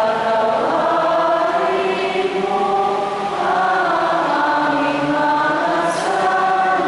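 Voices singing a slow song in long, held notes that glide smoothly from one pitch to the next, without a break.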